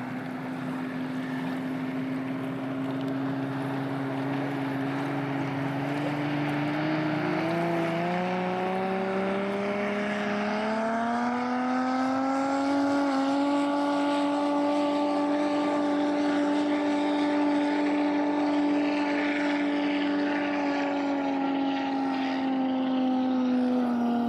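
Boat powered by a turbocharged Ford Barra inline-six engine, running under way. The engine note holds steady at first, climbs over several seconds as it picks up revs, holds there, then eases off near the end.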